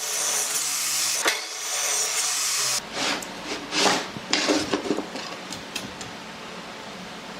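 Wood being worked with a hand tool: a steady hiss of cutting or rubbing for nearly three seconds, then a run of wooden knocks and scrapes as the pieces are handled, settling into a quieter hiss.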